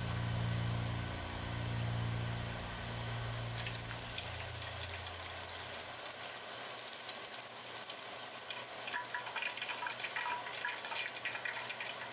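Breaded cutlet deep-frying in hot oil: a steady sizzle with crackling pops, busier in the last few seconds. Soft background music fades out over the first few seconds.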